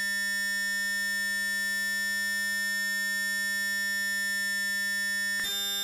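Dial-up modem tone from the MSN TV 2 on the phone line: a steady, buzzy electronic tone held without a break, which switches to a different tone near the end as the connection attempt goes on.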